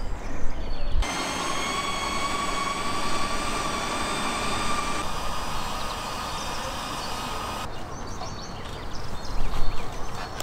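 Electric meat grinder motor running as meat is pushed through it: a steady whine that starts about a second in and stops about three seconds before the end.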